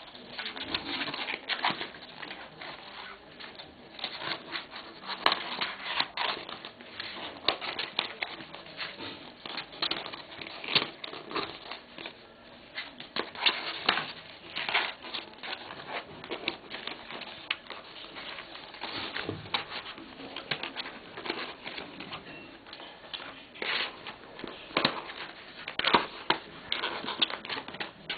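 Jigsaw lamp pieces being handled and slotted into one another: a continual run of irregular light clicks and taps.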